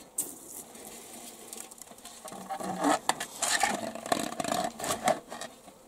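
Mass of Colorado potato beetles poured from a metal basin into a funnel cut from a plastic bottle, pattering and rattling against the plastic, with the basin scraping. The pouring grows louder and denser about two and a half seconds in.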